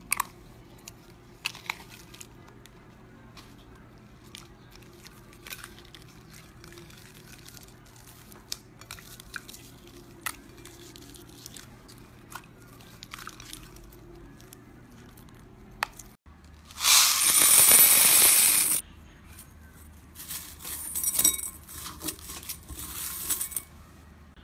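Slime being handled: small sticky clicks and pops as pink-and-clear slime is pressed and pulled apart by hand, then after about sixteen seconds a loud, dense crunching noise lasting about two seconds, followed by a few shorter crunching bursts as clear slime is worked.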